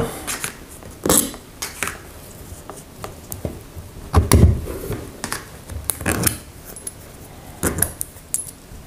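Nuts being taken off an LPG reducer and handled: scattered small metallic clicks, clinks and light scrapes, with a heavier knock about four seconds in.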